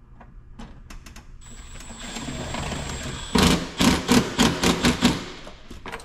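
Milwaukee cordless driver running a screw into a truck's door trim panel. A steady motor whine starts about a second and a half in, then turns into a loud rapid clatter of about four or five strokes a second as the screw tightens down.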